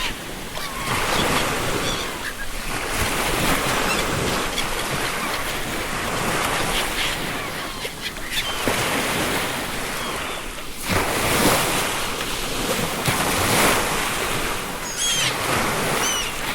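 Ocean surf breaking and washing on the shore in repeated swells, with seagulls calling now and then; a few gull cries come near the end.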